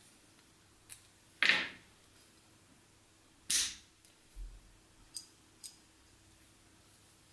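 Small metal parts being handled and fitted together: an aluminium hub and steel pins knock against a brass worm wheel. There are a few light clicks and two louder, sharp metallic sounds about two seconds apart.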